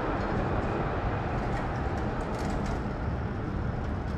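Steady outdoor street ambience: an even low rumble like distant traffic, with a few faint ticks about two seconds in.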